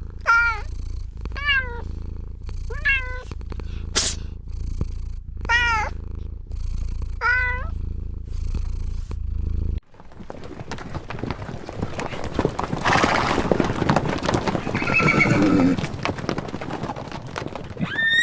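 A cat meowing over and over, about six short calls spaced a second or so apart, over a steady low hum. About ten seconds in it cuts to a rough, noisy animal sound with no clear pitch.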